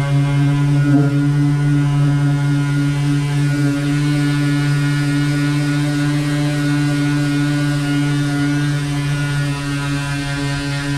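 Pneumatic dual-action (DA) air sander running at a steady speed while sanding a car bonnet: a loud, even hum with no change in pitch.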